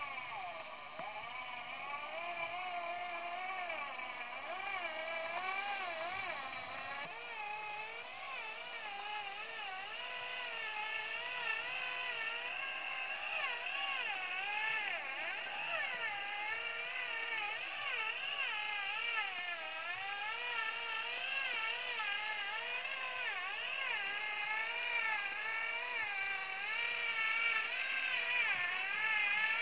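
Electric motor and gearbox of a radio-controlled truck whining as it crawls under load, the pitch rising and falling constantly as the throttle is worked.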